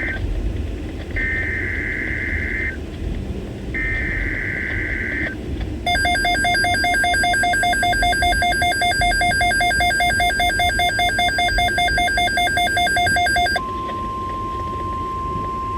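NOAA Weather Radio emergency alert tones: two screeching two-tone SAME digital header bursts about a second apart, then a loud pulsing alarm tone for about eight seconds. The alarm tone gives way to a steady single-pitch alert tone.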